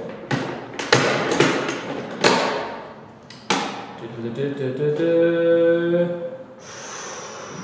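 Latches of a hard plastic carry case being snapped open: a run of sharp clicks and knocks. Then a man's voice holds one long note, and a soft rustle follows near the end.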